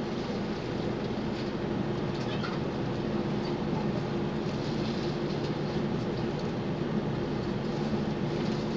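Taiwan Railways train running at a steady speed, heard from aboard: a continuous rumble of wheels on rail with a steady low hum.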